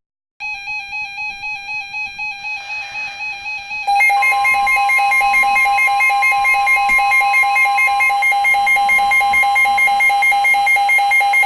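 Weather alert radio sounding its pulsing electronic alarm beep, joined about four seconds in by the steady NOAA Weather Radio warning alarm tone, louder from then on. It signals that a new weather warning is coming in, here a severe thunderstorm warning.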